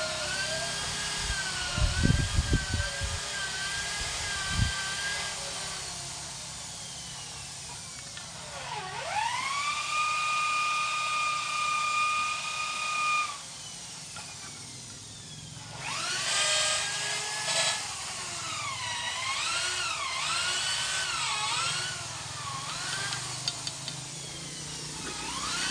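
A small electric power tool's motor whining: about nine seconds in it spins up to a steady high whine that holds for about three seconds and cuts off, and later it runs again with its pitch wavering up and down. A few knocks sound about two seconds in.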